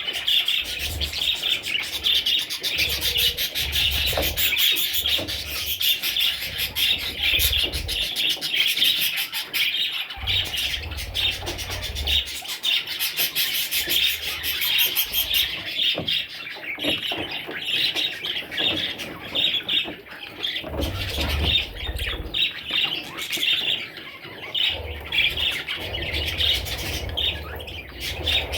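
Budgerigars chirping and chattering without pause, many quick calls overlapping, with a low rumble coming and going underneath.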